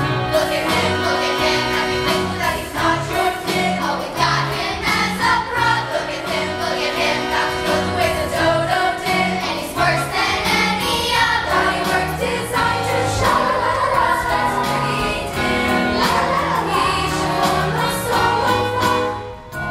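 Musical-theatre cast singing together in chorus over instrumental accompaniment with a steady bass beat, dipping briefly near the end.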